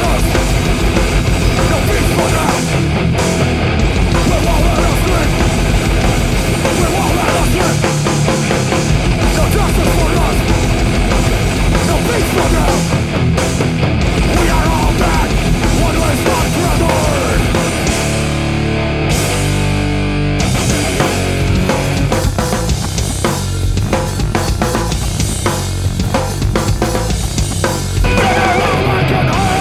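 A rock band playing live: electric guitar, bass and a drum kit in a loud, heavy song. About two-thirds of the way in, the cymbals briefly drop out and a sparser passage follows, before the full band comes back in near the end.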